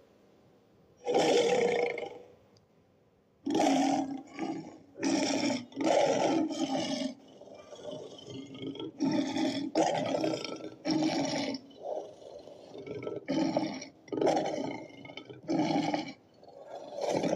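Custom smilodon (sabre-toothed cat) creature sound effect: one roar about a second in, then after a short pause a rapid string of short roars and growls, about one a second.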